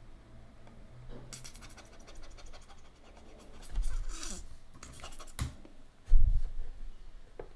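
Computer mouse clicks, keystrokes and scratchy desk noises: a quick run of clicks about a second in, scattered clicks later, and a dull thump about six seconds in, the loudest sound.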